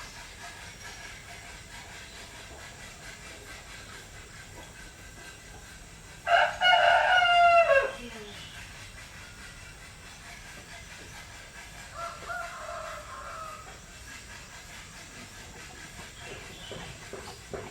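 A rooster crowing once, a loud cock-a-doodle-doo about six seconds in whose last note falls away. A fainter, shorter call follows about twelve seconds in, over a steady background hiss.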